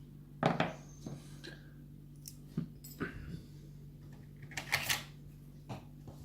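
Small metal clicks and rattles from a pin-tumbler lock being taken apart, its pins and springs tipped out: a few sharp separate taps, the loudest about half a second in and a quick rattle near five seconds in.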